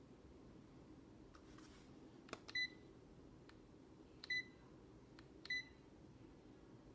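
Three short electronic beeps from a digital multimeter as its buttons are pressed, each a single clear tone, with faint clicks of the button presses between them.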